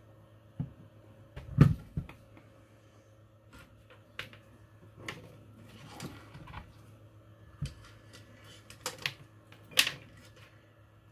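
Scattered clicks and knocks of a multimeter and its test leads being handled and set up on a workbench, the loudest about a second and a half in and again near the end. A steady low hum runs underneath.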